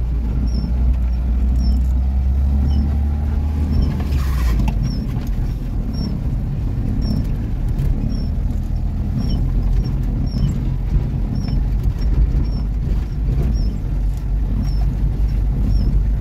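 Car engine running steadily while driving along a muddy dirt road, heard from inside the cabin as a low rumble. A faint high chirp repeats a little more than once a second, and a brief hiss comes about four seconds in.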